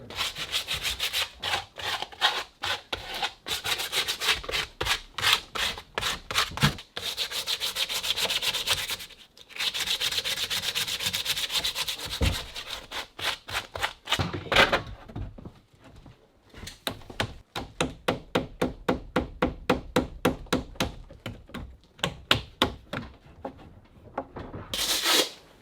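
Repeated scraping strokes on wood in runs with short pauses, the later run at about three strokes a second.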